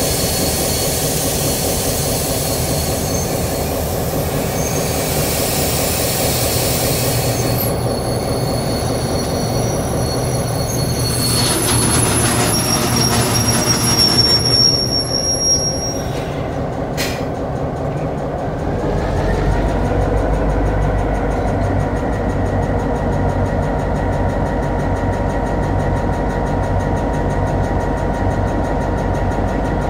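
Freight train rolling slowly behind an EMD series 661 diesel-electric locomotive, its steel wheels squealing on the rails through the first half. About two-thirds of the way in, the locomotive's diesel engine rises in pitch and then runs on steadily.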